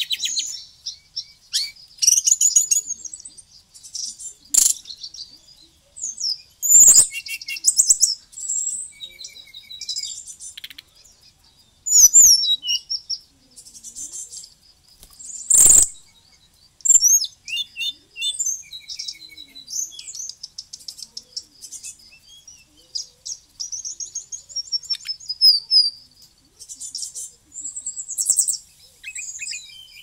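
Caged jungle flycatcher, the bird Indonesian keepers call SRDC (sikatan rimba dada coklat), singing at length in quick, varied high phrases full of fill notes, with short pauses between. A few sharp clicks sound in between.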